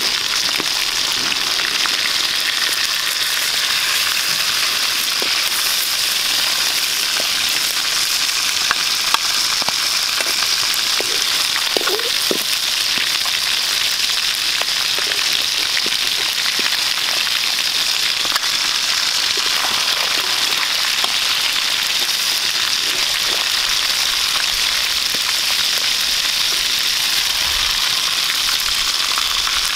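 Fish heads frying in hot oil in a metal wok: a steady, dense sizzle with a few small pops.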